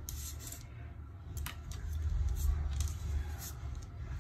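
Knife blade scraping and tapping on parchment paper as it works through soft melted lipstick: several short, scattered scrapes over a low steady rumble.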